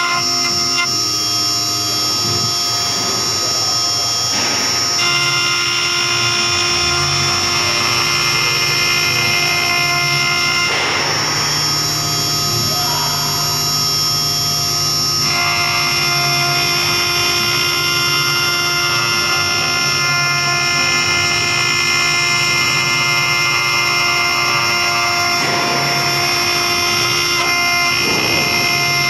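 BJD 4040 CNC router spindle running with a steady high whine while its engraving bit cuts letters into a metal plate, with a cutting hiss. Its tones shift a few times as the cut changes, and a low hum comes in a few seconds in.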